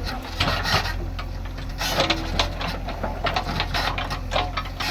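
JCB backhoe loader's engine running with a steady low rumble, with repeated short clattering knocks over it.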